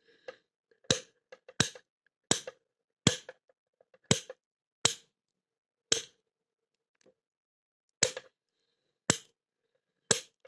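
Lock picking on a pin-tumbler BAB padlock with a cast-zinc body and brass pins: a run of sharp metallic clicks from the pick and pins, about one a second at uneven spacing.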